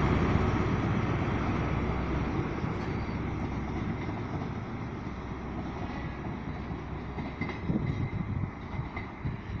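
InterCity 125 High Speed Train departing, the diesel of its rear Class 43 power car and its wheels on the rails fading steadily as it draws away. A few uneven low knocks come near the end.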